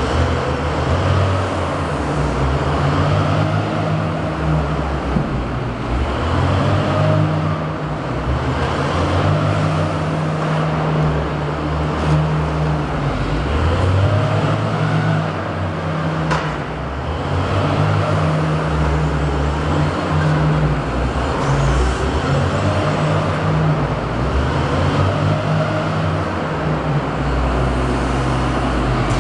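Wheel loader engine running under load while it works a cotton bale clamp, its note rising and falling several times.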